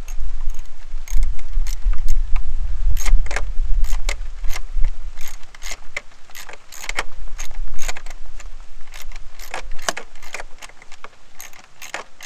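Socket ratchet clicking in short, irregular strokes, with metal clinks of socket and extension, while the mounting bolt of a new EVAP purge valve solenoid is tightened. A low rumble sits under the first eight seconds or so.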